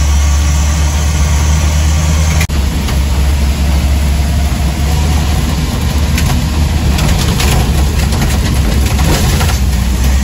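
Old Series Land Rover driving on the road, heard from inside the cab: a loud, steady low drone from the engine and drivetrain. There is a momentary break about two and a half seconds in, and some short crackles later on.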